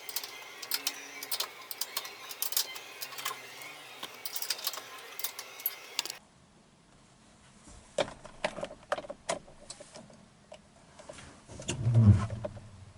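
Quick metallic clinking and clicking of hand tools and metal parts being handled during work on the engine mounts. After a cut, a few sharper clicks and a short low thump near the end.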